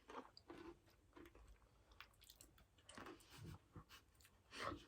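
Faint, irregular crunching and chewing of Reese's dipped pretzels being eaten.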